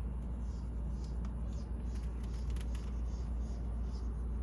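Steady low rumble with a few faint light clicks about two seconds in.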